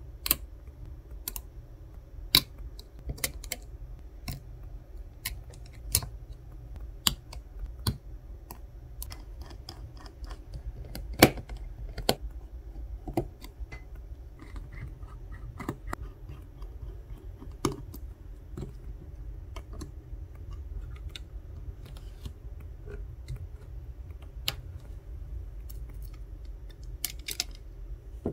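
Sharp, irregular clicks and taps of a plastic spudger and metal tweezers on an iPhone 14 Pro's frame and logic board as flex-cable connectors are prised off and parts lifted out, with a quick run of clicks near the end, over a low steady hum.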